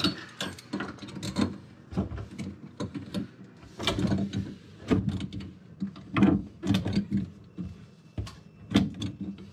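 Irregular clicks, knocks and scrapes of hands and a tool working the plumbing fittings under a kitchen sink, as a dishwasher's water supply connection is tightened.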